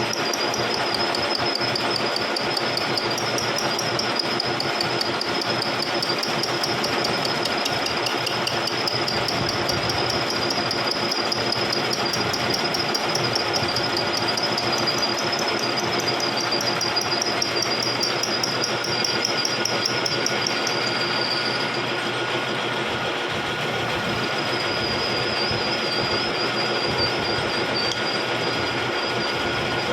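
Vertical milling machine running steadily while milling the teeth of a spur gear, with a constant mechanical noise and a wavering high-pitched whine that drops out briefly about two-thirds of the way through.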